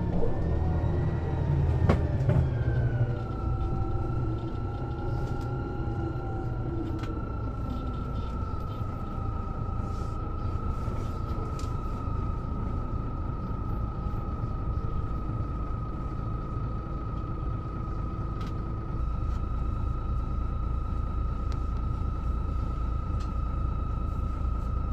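Mercedes-Benz O407 city bus under way: its engine note falls over the first few seconds, then a steady whine holds above the low rumble of the drivetrain and road noise, with occasional small rattles.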